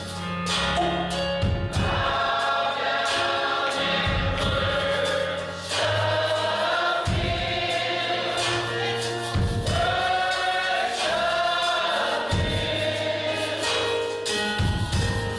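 Gospel choir singing with band accompaniment: bass, drums and keyboard.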